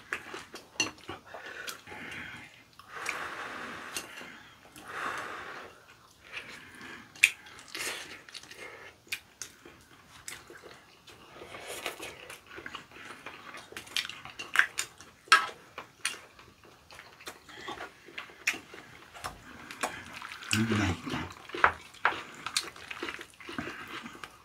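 People eating spicy rabokki: noodles slurped and chewed, with the sharp clicks of chopsticks on a frying pan and plates, and a brief low hum-like mouth sound near the end.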